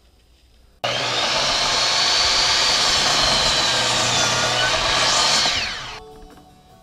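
Laser-guided miter saw running and cutting through a pressure-treated post, with a high whine. It cuts in suddenly about a second in and winds down with a falling whine near the end, leaving faint music.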